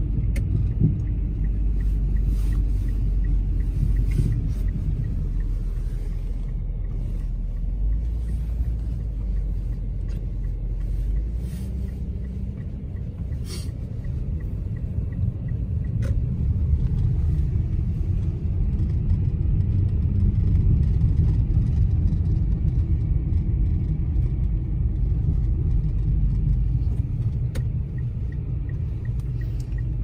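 Steady low rumble of a car's engine and tyres on a snowy road, heard from inside the cabin, with a couple of brief clicks.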